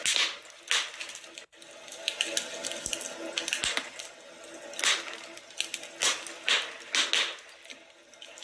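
Wood fire crackling: irregular sharp pops and snaps over a steady hiss, with a brief dropout about one and a half seconds in.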